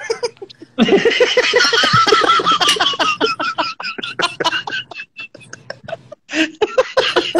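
Men laughing, starting about a second in and running on in choppy runs of short pulses, heard through the compressed audio of a phone's live video call.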